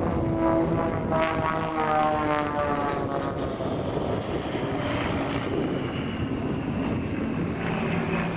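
Engine and propeller of an Xtreme Air Sbach 300 aerobatic aircraft flying past. The engine's pitch falls from about a second in, then settles into a steady drone.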